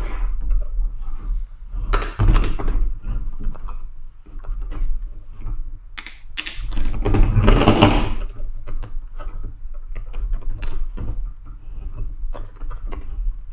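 Irregular plastic clicks, taps and knocks from working a visor's quick-release clip into a Riddell Speedflex football helmet, the last clip proving hard to seat. There is a longer stretch of handling noise about halfway through.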